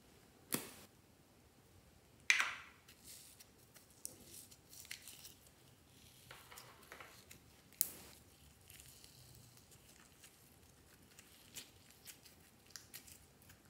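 Sharp plastic clicks and snaps as a gem-shaped plastic glitter container is handled and opened, the loudest about two seconds in. Between them come soft crackles and squishes of slime being pressed and pulled.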